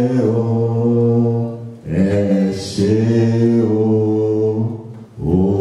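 Unaccompanied singing of a slow worship song in long held phrases, breaking off briefly about two seconds in and again near the end.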